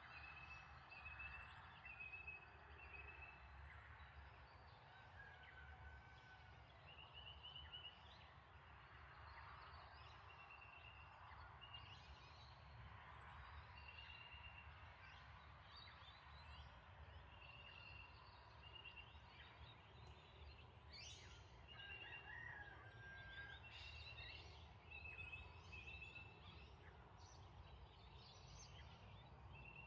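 Faint outdoor ambience: short high-pitched trilled chirps, nearly all at the same pitch, repeat every second or two from a calling animal over a low steady rumble.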